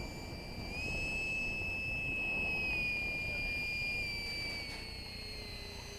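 Electric ducted fan (68 mm Leopard EDF) of a radio-controlled L-39 jet giving a steady high-pitched whine. The whine swells and rises slightly about a second in, then falls in pitch and fades near the end.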